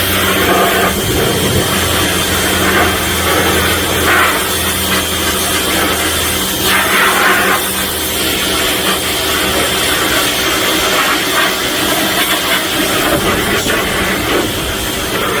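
Budget electric pressure washer running and spraying: the high-pressure water jet hisses steadily, with the pump motor's low hum underneath.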